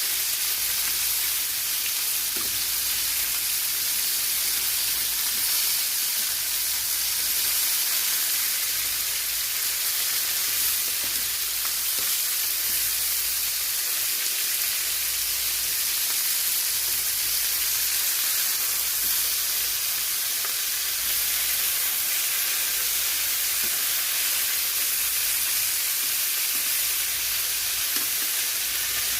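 Seasoned chicken pieces searing in a hot pan, a steady sizzle that holds at the same level throughout.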